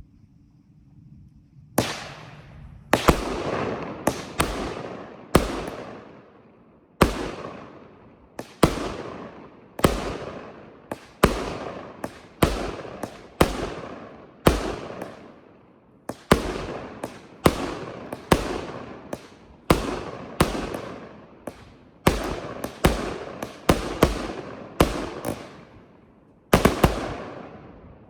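A 'Dark Night' 25-shot repeater firework cake firing its shots one after another. Sharp loud reports come a half second to a second and a half apart, each fading off in a tail, starting about two seconds in and stopping shortly before the end.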